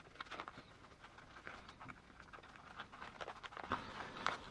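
Faint rustling, rubbing and small clicks of a small rubber RC crawler tire and its foam insert being handled and worked onto a plastic wheel.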